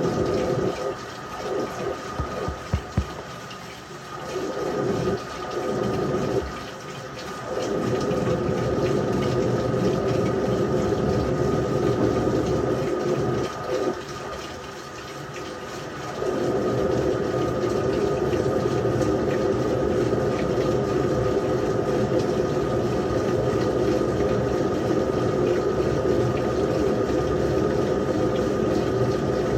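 LG washing machine taking in water, a steady rush of water with a constant hum over it. It dips and comes back a few times in the first half, then runs on evenly.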